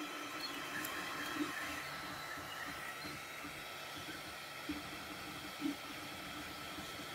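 Sooway SW200 3D printer powered up and idling, its cooling fans giving a steady hum and hiss with a faint steady whine. A couple of soft taps near the middle.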